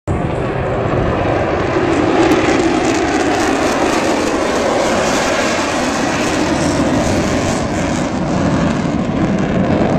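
Jet engine noise of a pair of U.S. Navy F-35C Lightning II fighters flying past, a loud, steady rushing sound.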